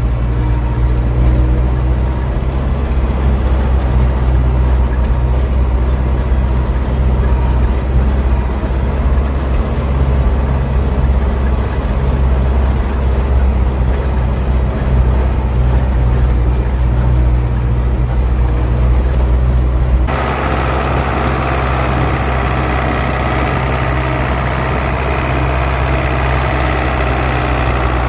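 Belarus 820 tractor's four-cylinder diesel engine running steadily under load while pulling a plough, heard from inside the cab. About twenty seconds in the sound switches to the same tractor heard from outside, brighter and harsher.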